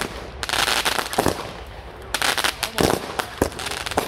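200-gram consumer aerial fireworks going off: sharp booms a second or so apart, between stretches of dense, rapid popping.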